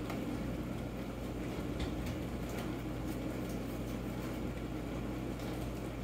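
Quiet room tone: a steady low hum under a faint hiss, with a couple of faint ticks about two seconds in.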